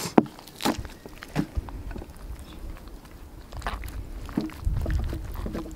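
Wet squelches and slaps of hands folding and pressing raw caul fat around minced meat: a handful of short, separate sounds. A low rumble comes in near the end.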